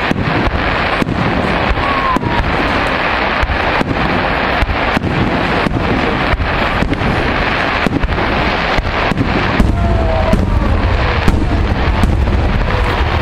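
Fireworks display: aerial shells bursting in a rapid, continuous string of bangs and crackle, with a few faint whistles. The low booming grows heavier about ten seconds in.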